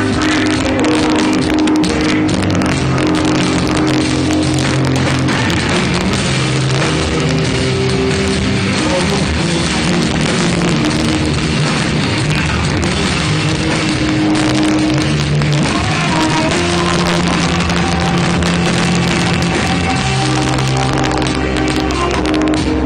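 Live rock band playing loud and steady, heard from within the crowd at the show.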